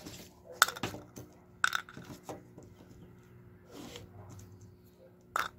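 Light clicks and taps of small metal airbrush parts being handled during disassembly, about four in all, over a faint steady hum.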